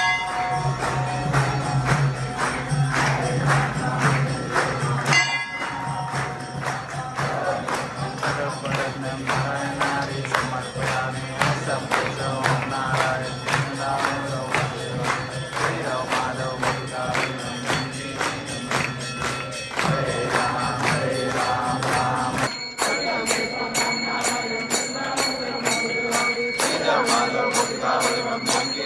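Hindu devotional music: singing over a steady, even beat of rhythmic percussion. The sound changes abruptly about 22 seconds in.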